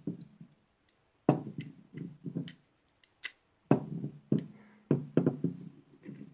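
Metal clicks and knocks from a pistol's parts being handled and worked against the frame while working the trigger bar loose. The knocks come at irregular moments, several of them sharp with a short ring, and the loudest fall about a second in and again near the middle.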